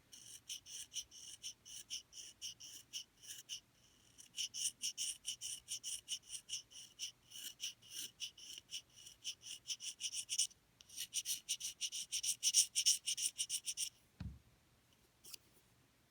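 Reed knife scraping the bark off an English horn reed's cane blank in quick, short strokes, several a second, in three runs with brief pauses. A single low thump comes near the end.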